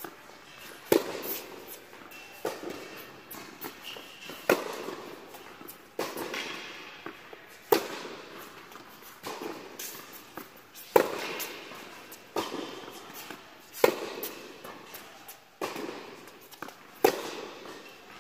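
Tennis groundstroke rally: sharp pops of the ball off the rackets about every second and a half, with fainter bounces between them, echoing in an indoor tennis hall.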